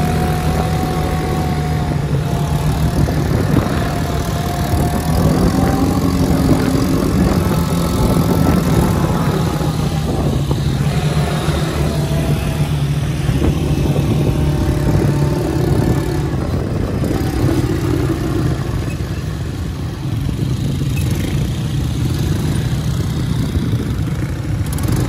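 Quad bike (ATV) engines running, a steady drone whose pitch rises and falls as the machines ride along.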